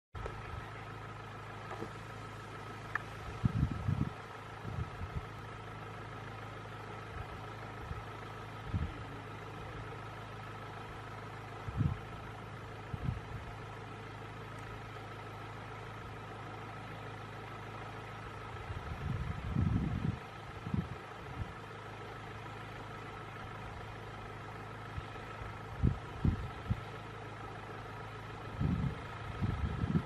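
A vehicle engine idling with a steady hum, broken by a handful of short low thumps, several of them around the middle and near the end.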